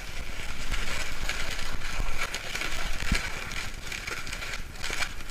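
Inflated latex modelling balloon squeaking and rubbing as hands twist it into a cluster of bubbles, with scattered short clicks.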